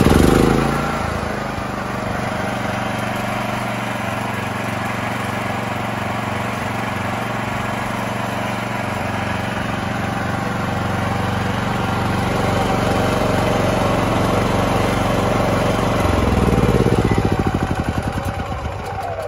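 Champion 8750-watt open-frame inverter generator catching on its electric start with a brief rev, then settling into steady running. Its engine note swells for a couple of seconds near the end.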